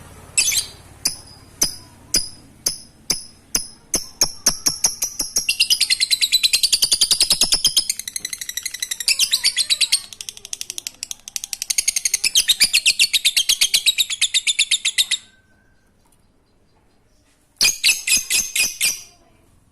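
Lovebird ngekek: sharp, high chirps start spaced out and speed up into a long, fast, unbroken chatter lasting about ten seconds, then stop. A short second burst of fast chirps comes near the end.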